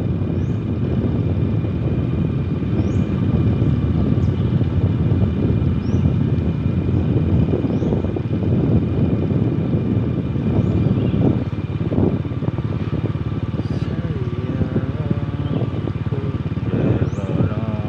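A motor vehicle engine running steadily, with a person's voice briefly about fourteen seconds in and again near the end.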